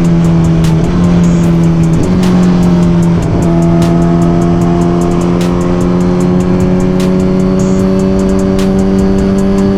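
Suzuki GSX-R1000 inline-four engine under load, with short breaks in its note as it changes gear in the first few seconds, then rising steadily in pitch as the bike accelerates. A music track with a steady beat plays over it.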